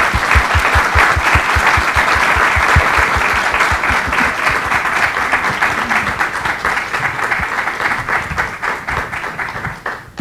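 Audience applauding, a steady crowd clapping that eases off near the end.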